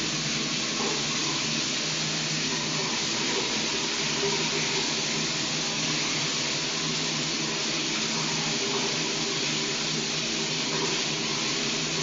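Shower running: a steady, unbroken rush of water spray, with a low steady hum underneath.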